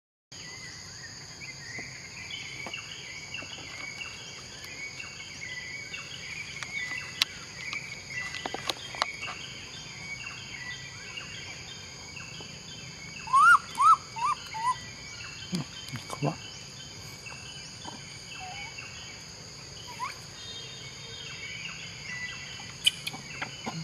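Tropical forest ambience: a steady high-pitched insect drone with a chorus of bird calls, scattered light clicks, and a quick run of four loud chirps about halfway through.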